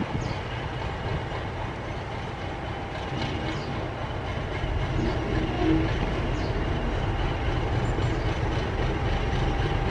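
Class 50 diesel locomotive's English Electric 16-cylinder engine running steadily as the locomotive moves slowly forward.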